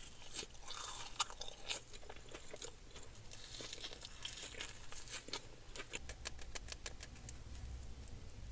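Close-miked chewing: a mouthful of sweet snack being bitten and chewed, with many small crunches and wet mouth clicks, coming quicker in the second half.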